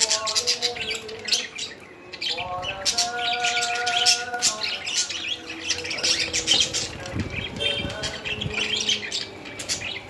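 A group of budgerigars chattering, a busy unbroken stream of rapid chirps and squawks.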